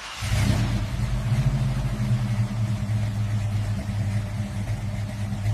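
Car engine running at a steady idle, a low even hum that settles in about a quarter second in.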